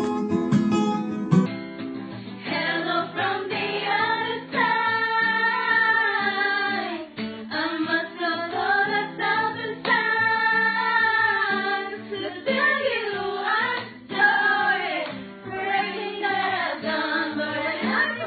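A group of women singing a song together, with acoustic guitar accompaniment. About a second and a half in, a guitar-and-voice duo cuts off and the group singing begins.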